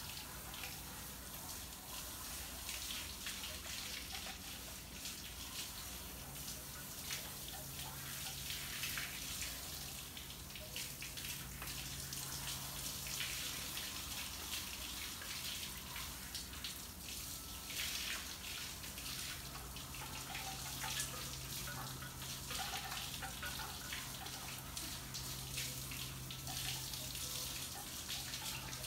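A garden hose sprays water onto a dog's wet coat and the patio paving: a continuous hiss with irregular splashes.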